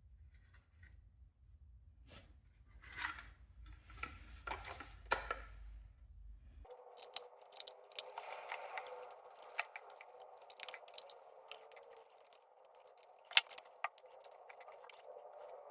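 Irregular small clicks, rattles and scrapes of hard objects being handled, like tools or fittings. About a third of the way in, a low hum stops abruptly and a steady hiss begins under denser clicking.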